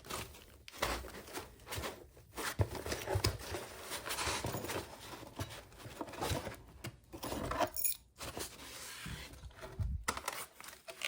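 Hands rummaging through a door lock's box of parts: small metal pieces clinking and packing material rustling in irregular bursts.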